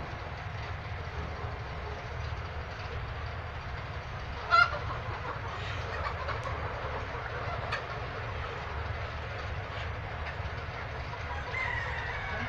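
A large flock of Golden Misri chickens, with a loud squawk about four and a half seconds in and a drawn-out falling call near the end, over a steady low rumble.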